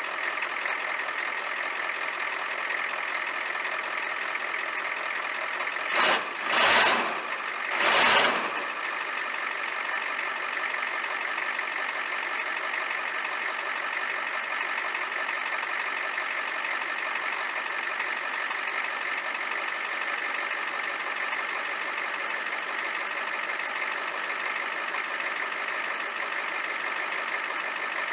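1993 Ford F-350's 7.3-litre IDI V8 diesel idling steadily after a cold start. Three short loud bursts of noise come about six to eight seconds in.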